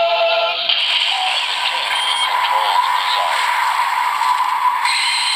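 Kamen Rider Zero-One Driver toy belt playing a legend-rider key's transformation sound effect through its small speaker: a recorded voice call over electronic music, fading near the end.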